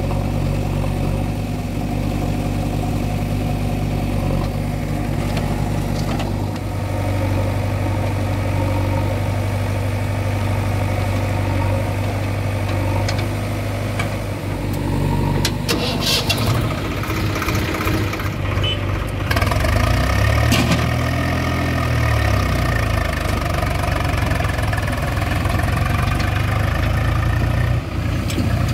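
Diesel engines of a Swaraj tractor and a JCB 3DX backhoe loader running steadily. About two-thirds of the way through, the engine speed rises and falls, with a few knocks just before it.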